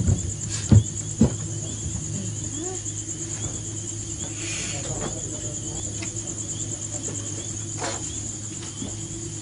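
Crickets trilling steadily, a continuous high pulsing chirr over a low hum, with a few sharp knocks in the first second or so.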